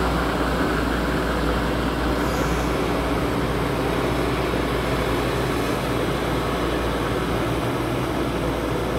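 Small paddy tractor engines running steadily under load as the tractors work a flooded rice field, a continuous even drone with no changes in pace.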